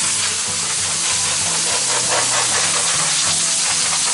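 Steady hiss of spray from a hose nozzle aimed at a motorhome's painted lower side panel, over quiet background music.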